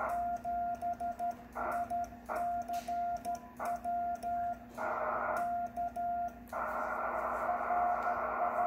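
Morse code sent by hand: a single tone of about 700 Hz keyed in dots and dashes from a 1963 Vibroplex Lightning Deluxe key worked as a sideswiper, with faint clicks of the key's contacts. About six and a half seconds in, receiver hiss comes up and stays under the tone.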